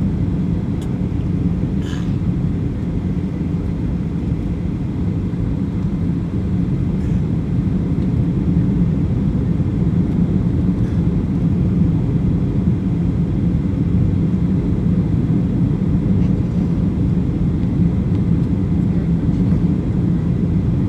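Steady low drone inside the cabin of a Boeing 737-800, its CFM56 engines running.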